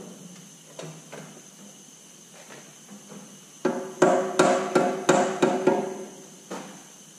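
A heavy mallet striking the flywheel housing of a Detroit Diesel 3-53 engine to drive it onto its locating dowels. There are a few light taps, then about seven hard blows in quick succession, roughly three a second, each leaving the housing ringing, and one last lighter blow near the end.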